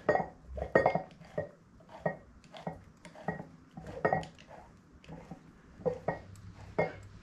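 Small six-jaw steel scroll chuck being worked by hand to back its jaws out: a string of light metallic clinks and clicks, irregular, about one or two a second.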